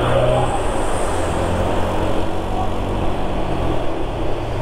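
Motor scooter riding under throttle, its engine hum mixed with steady wind rush over the onboard microphone.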